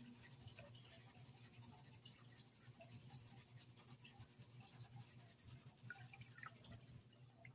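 Faint swishing and dripping of water as a plastic gold pan of concentrates is shaken and dipped in a tub of water, with small scattered ticks of grit and a low steady hum underneath.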